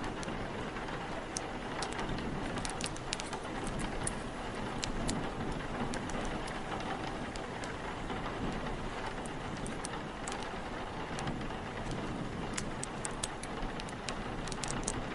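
Steady rain and wind with scattered sharp crackles from an open fire.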